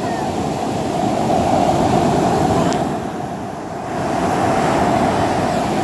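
Ocean surf washing on the shore: a steady rush of waves that swells, eases a little about three seconds in, and swells again.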